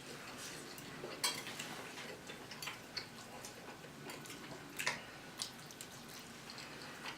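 Faint table sounds of a meal: a few sharp clicks and taps of cutlery and dishes, scattered over a quiet background.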